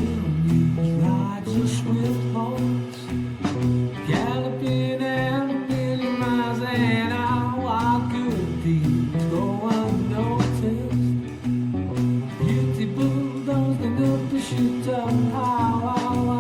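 Demo recording of a pop-rock song: guitar accompaniment with a sung lead melody.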